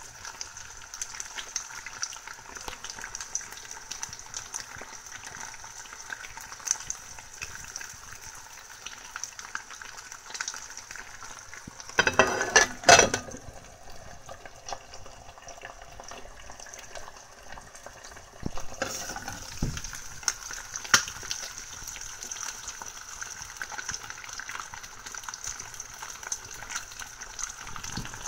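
Eggs and chicken salami slices frying in a pan: a steady sizzle with fine crackling. About twelve seconds in there is a short, louder clatter, and the sizzle stays quieter for about five seconds before coming back.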